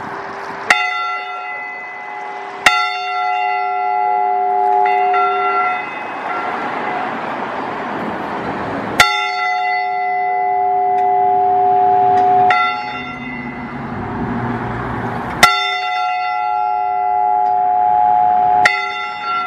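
Single church bell struck five times at uneven intervals, each stroke ringing on and fading into the next. A rushing noise rises and falls between the strokes.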